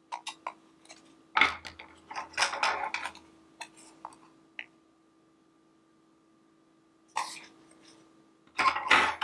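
Diamond-painting coasters clicking and clattering against each other as they are handled and shuffled, in several short bursts. The loudest bursts come about a second and a half in and near the end, with a quiet pause between.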